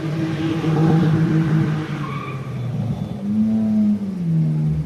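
A motor vehicle engine running nearby, revving up a little after three seconds in and dropping back down near the end.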